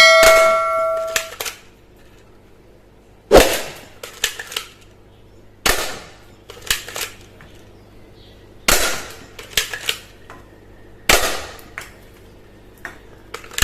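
Toy gun fired four times: sharp cracks a few seconds apart, each followed by a few lighter clicks. A brief ringing tone sounds at the very start.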